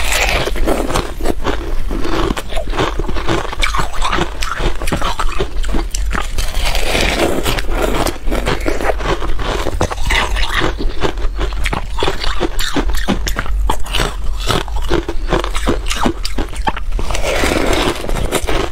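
Frozen cola ice bitten and crunched between the teeth: a dense, unbroken run of sharp cracks and crunches.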